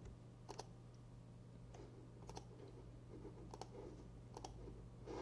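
About half a dozen faint, sharp clicks at a computer, spaced irregularly over several seconds, with a low steady hum underneath.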